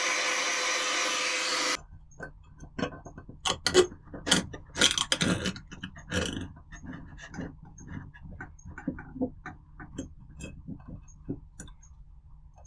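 A loud steady hiss, like a compressed-air tool, that stops abruptly about two seconds in. It is followed by a run of irregular light clicks and taps over a faint low hum.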